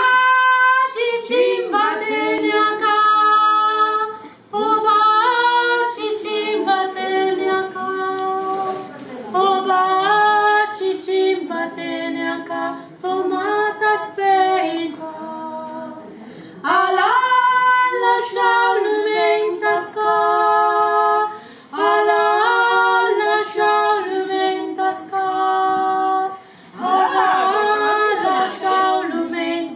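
Two women singing a folk song unaccompanied, in long phrases with short breaks between them.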